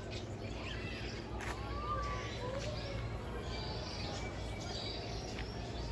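Scattered bird chirps and short whistled calls, a couple of them gliding in pitch, over a steady low background hum.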